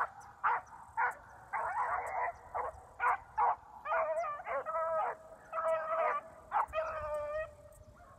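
Beagles baying on a rabbit's track, a string of short chopped barks mixed with longer drawn-out bawls, some overlapping; the last few cries are longer and held.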